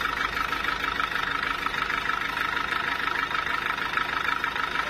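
Sawmill saw machinery running steadily, an even mechanical drone with no change in pitch or speed.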